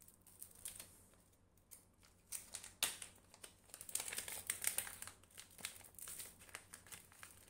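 Packaging being crinkled and rustled by hand: a crackly rustle with many small sharp clicks, growing louder about two seconds in and busiest near the middle.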